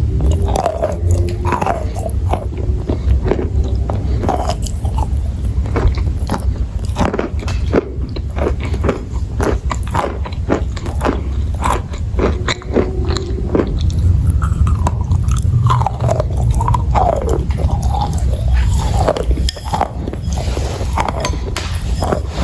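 Close-miked biting and chewing of hard, brittle chalk and clay: many sharp crunches in quick, irregular succession.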